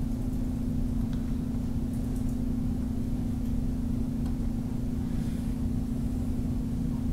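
Steady electrical hum with low rumble and hiss, the room tone of a screen-recording microphone, with a few faint clicks.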